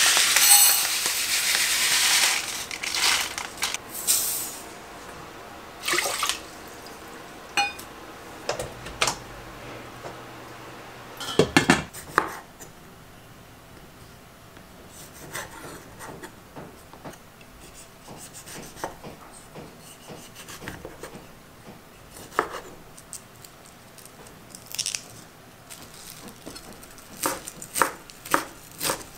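A pour into a stainless steel saucepan on the stove, a rush lasting about four seconds, followed by scattered clinks and knocks of pots and utensils. Later a chef's knife slices cherry tomatoes and chops parsley on a wooden cutting board, with a run of quick knife taps near the end.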